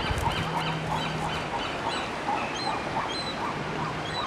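Baby herring-type gull chick giving rapid, repeated begging peeps, about three a second, with higher chirping calls over them. A low steady hum comes in twice.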